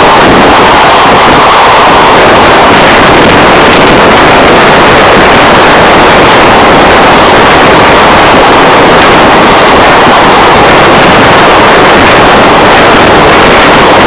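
Passenger coaches of an express train running past at speed: a loud, steady rushing noise of wheels on rail and displaced air, without a break or a horn.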